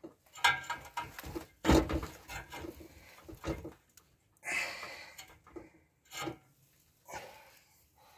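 A vernier caliper knocking and scraping against a car's exhaust pipe as it is set to measure the pipe's diameter, with a louder knock just under two seconds in. A person's heavy breathing comes between the knocks.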